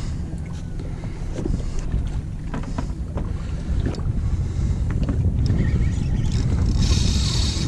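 Wind rumbling steadily on the microphone on an open boat at sea, with a few light clicks. A hiss comes in near the end.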